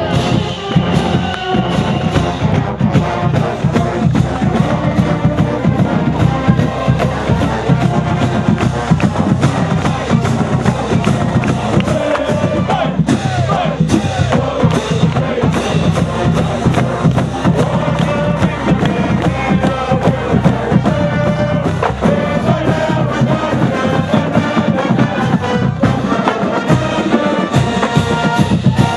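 College marching band playing, with the drums prominent under the melody.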